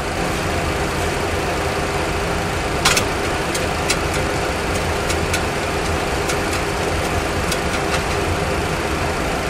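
Steady cockpit hum and rumble of a Boeing 737 Classic full flight simulator in simulated flight. A few light clicks come over it, the loudest about three seconds in, as the heading selector knob on the mode control panel is turned.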